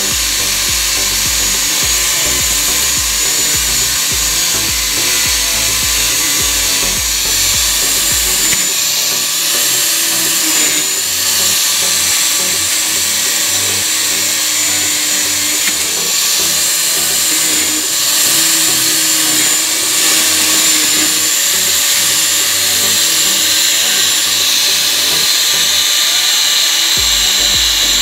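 Electric angle grinder fitted with a paper disc, running steadily while pressed against a plastic motorcycle helmet shell and grinding it down, with a steady high whine.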